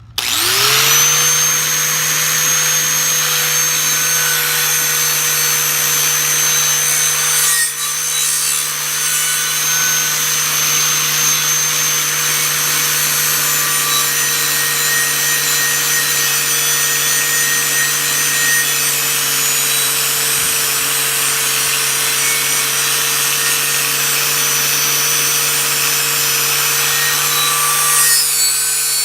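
Electric polishing wheel switched on, its motor whine rising as it spins up to speed, then running steadily with a loud abrasive hiss as the rusty steel blade is polished toward a mirror finish. A brief dip in the sound comes about eight seconds in.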